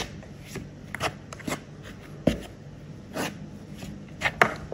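Metal spoon stirring dry flour in a plastic mixing bowl: soft, irregular scraping strokes, with two louder scrapes close together near the end.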